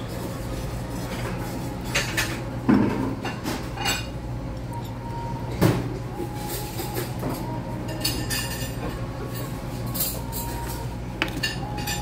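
Scattered clinks and knocks of cutlery against plates and dishes at a dining table, a few of them sharper and louder, over a steady low room hum.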